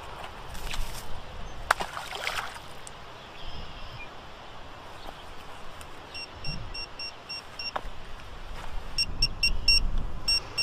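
Handheld sonar fish finder sounding its fish alarm: runs of short high beeps, about four a second from around six seconds in and quicker near the end, signalling fish detected under the float. Earlier comes a splash as the sonar float lands in the lake, with low wind rumble on the microphone throughout.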